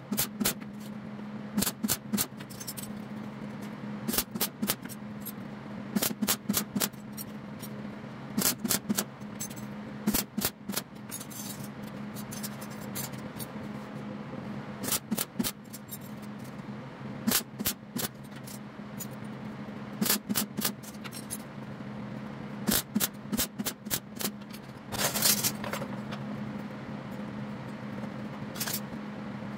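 MIG welder laying short tack welds that join steel leaves to rod stems, each tack a brief crackling burst, repeated every second or two, with one slightly longer weld near the end. A steady low hum runs underneath.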